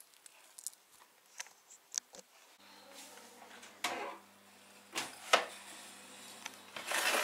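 Scattered light clicks, then a few sharp knocks as filled loaf tins are handled and set on the stovetop rack. A low steady hum starts about two and a half seconds in.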